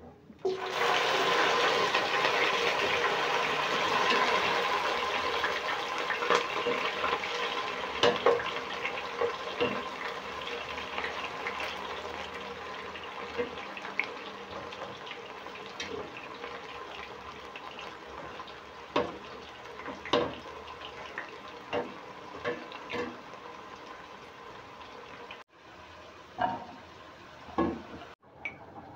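Arrowroot sticks deep-frying in hot oil: a loud sizzle starts suddenly as they go in and slowly dies down, with scattered pops and crackles. Near the end it cuts to a quieter sizzle with a few clinks as oil is poured over sliced red onions in the pot.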